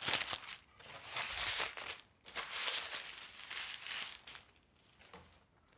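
Protective wrapping rustling and crinkling as a thin LED light panel is slid out of it and the wrapping is pushed aside, in three stretches over about four seconds.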